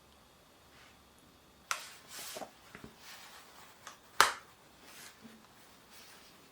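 Hands handling a plastic phone case, with soft rustling and a few sharp clicks, the loudest a little past four seconds in.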